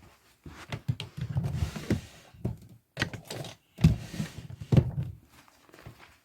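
Things being handled and moved about in a small room: a string of irregular knocks and thuds with rustling between them.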